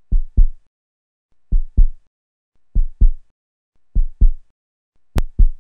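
Heartbeat sound effect: five deep double thumps (lub-dub), one pair about every 1.2 seconds. A sharp click lands on the first beat of the last pair.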